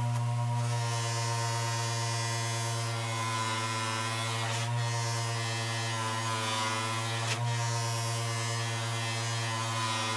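An electric motor running steadily with a strong, even hum, with a small tick about seven seconds in.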